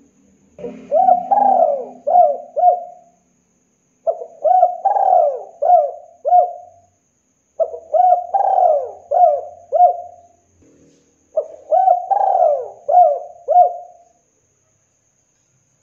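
Spotted dove (tekukur) cooing: four song phrases, each about two and a half seconds of four or five rolling coo notes, with about a second's pause between phrases.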